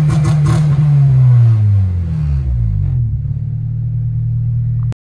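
Honda B18C 1.8-litre DOHC VTEC four-cylinder engine, heard from inside the car. It is held at about 5,000 rpm, then the throttle is released and the revs fall away over a second or so to a steady idle. The sound cuts off suddenly near the end.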